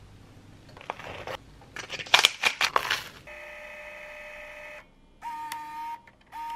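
Edited-in electronic sound effects: a quick run of sharp clicks, then a steady electronic tone held for about a second and a half, then two short beeps near the end.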